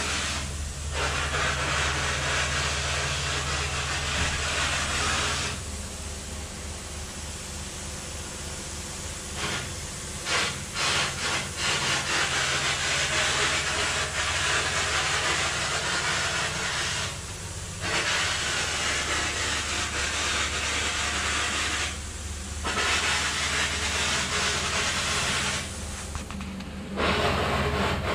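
Hitachi EX3600 mining excavator running, a steady low engine hum under a loud hissing rush of air that cuts out briefly several times.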